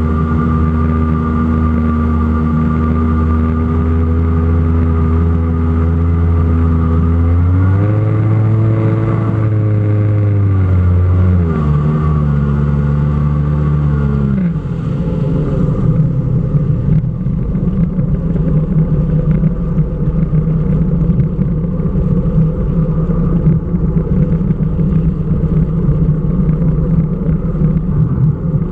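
Jet ski engine running steadily at speed, rising in pitch about eight seconds in and falling back a few seconds later. About halfway through the throttle comes off: the steady note stops, and a lower, rougher running sound follows, with the water jet churning and splashing.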